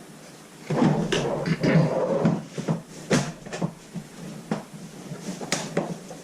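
Shelf parts being forced together during assembly: a dense run of knocking and rattling for a couple of seconds, then a series of separate sharp knocks and clicks.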